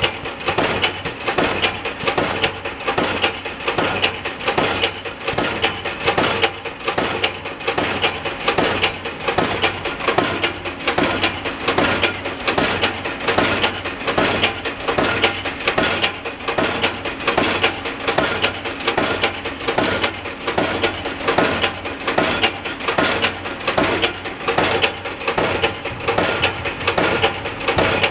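Pile driver hammering a bridge pile: repeated metallic blows in a fast, steady rhythm, with a low engine hum underneath.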